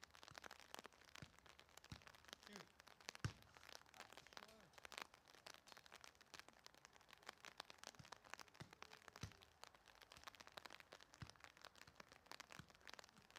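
Very quiet, with faint scattered clicks and crackles throughout and several dull thumps of a soccer ball being kicked, the loudest about three seconds in.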